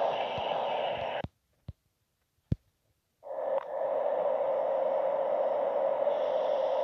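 Steady rushing train noise that cuts off abruptly about a second in. About two seconds of near silence follow, broken by two short clicks, then the same steady noise returns.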